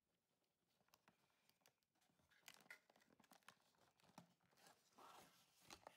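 Faint crinkling, small clicks and scrapes of a cardboard toy box with a plastic window being handled and opened by hand, busier from about halfway through.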